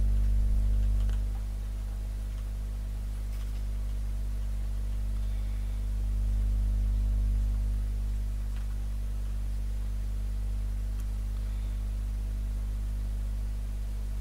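Steady low electrical mains hum with its overtones, unchanging throughout, with a few faint clicks.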